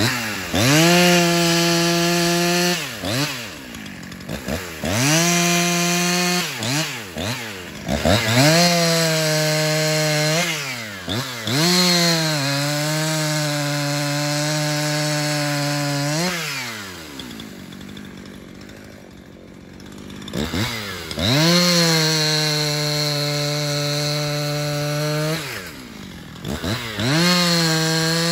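Husqvarna 350 two-stroke chainsaw cutting through a log, revved to full throttle in about six bursts with drops to idle between. There is a longer lull at idle about two-thirds of the way through.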